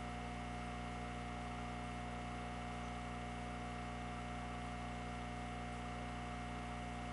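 Steady electrical hum with a higher steady whine above it and a faint hiss. Nothing changes throughout.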